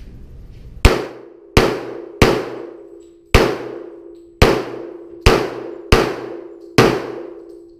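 Eight handgun shots fired in quick succession in an indoor range, each followed by a long ringing echo off the walls. The first three come fast, about 0.7 s apart, then a slight pause before the rest at about one a second.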